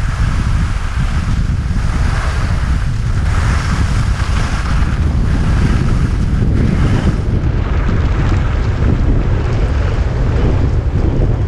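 Wind buffeting a GoPro Hero 5 Session's microphone in a steady low rumble during a fast ski descent, with skis hissing and scraping over the snow in repeated swells, which soften after about seven seconds.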